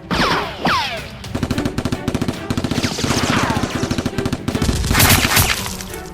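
Rapid automatic gunfire sound effects: long bursts of machine-gun fire with falling whistle sweeps near the start and again midway, loudest about five seconds in.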